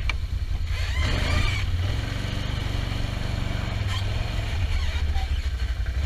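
Vehicle engine running at idle with a steady low rumble, cutting in abruptly at the start.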